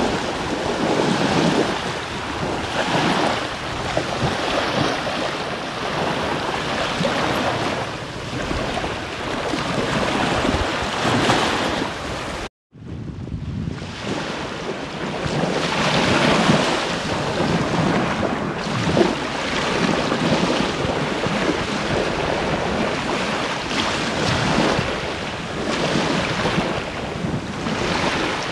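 Small sea waves lapping and breaking on a sandy shore, swelling and easing every few seconds, with wind buffeting the microphone. The sound cuts out briefly about halfway through, then resumes.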